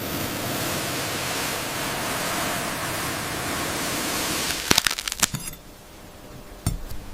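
A knife blade drawing through a foam cube, making a steady airy hiss, followed by a quick run of crackling clicks about five seconds in and a single tap near the end.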